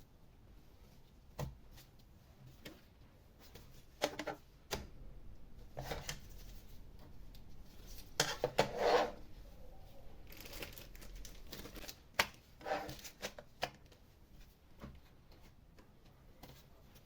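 Hands working on a laptop's case and small parts: scattered plastic clicks and taps with short rustling or scraping bursts, the longest about halfway through.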